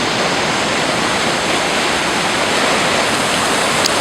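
Johns Brook in flash flood: a loud, steady rush of fast, high water.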